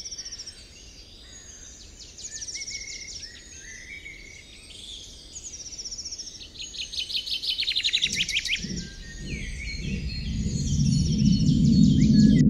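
Several birds singing and chirping in woodland, with a fast trill of repeated notes about seven seconds in. Over the last few seconds a low rumbling drone swells up and becomes the loudest sound.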